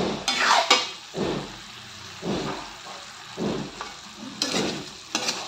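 A metal spatula scraping and stirring through chicken adobo in a pan, about once a second, with a couple of sharper clinks against the pan. Underneath, the sauce sizzles and simmers.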